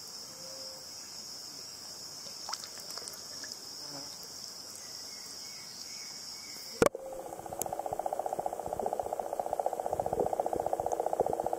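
A steady, high-pitched chorus of insects with a few faint chirps. About seven seconds in it cuts off abruptly and gives way to a louder, low, rapidly pulsing hum, heard as the recording switches to underwater.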